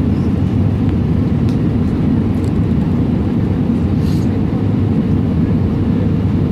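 Cabin noise of an Airbus A320 in descent on approach, heard from a seat over the wing: a steady low rumble of the engines and air rushing past the extended flaps, with a constant hum under it.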